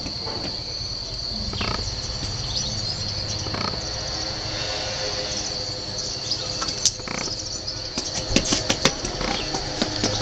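Steady high-pitched trill of crickets, with a few sharp clicks or taps in quick succession near the end.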